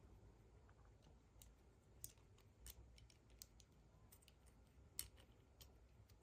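Near silence with faint, irregular clicks, the sharpest about two seconds and five seconds in.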